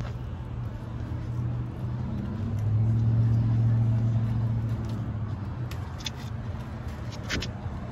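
A motor vehicle's engine running close by, a low steady hum that swells for a couple of seconds in the middle and then eases off. A few short clicks come near the end.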